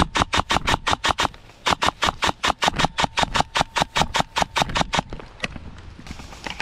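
Airsoft PP-19 Vityaz replica firing a rapid string of shots, about six or seven a second: a short run, a brief pause, then a longer run of about three seconds.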